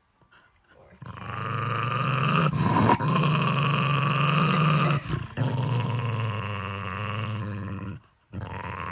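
Jack Russell terrier growling steadily and snarling with teeth bared as a hand reaches toward his stuffed toy: toy guarding. The growl starts about a second in, peaks sharply near three seconds, dips briefly around five seconds and stops for a moment near the end before starting again.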